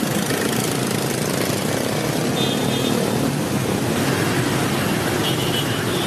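Steady, dense city street traffic noise: a continuous rush of engines and tyres.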